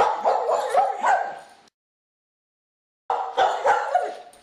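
A dog barking and yipping in quick, repeated calls, broken by about a second and a half of dead silence midway before the barking resumes.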